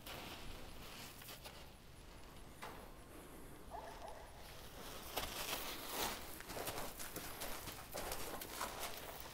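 A horse's hooves stepping on the ground as it moves about, the steps getting busier and louder from about halfway through.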